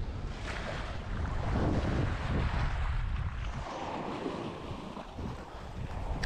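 Wind buffeting the microphone over water sloshing and splashing around a person standing in shallow water.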